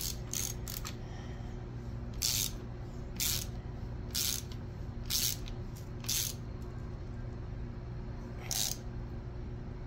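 Socket ratchet clicking in short bursts, about nine of them and mostly a second apart, as it is swung back and forth to run down the camshaft timing-sprocket bolt. A steady low shop hum sits underneath.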